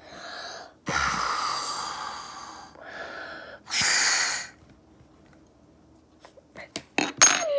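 Hard breaths blown through a metal straw into a mound of slime, heard as rushing hisses in three puffs, the first and longest lasting nearly two seconds. Near the end comes a quick run of short clicks and pops.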